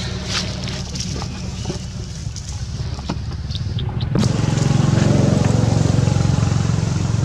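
A motor vehicle's engine running with a steady low hum, growing louder about four seconds in. Light clicks and rustles of dry leaves come earlier.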